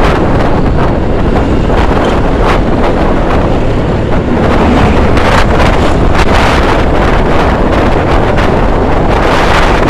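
Loud, steady wind noise buffeting the microphone of a camera on a moving scooter, with uneven gusts, mixed with road and traffic noise.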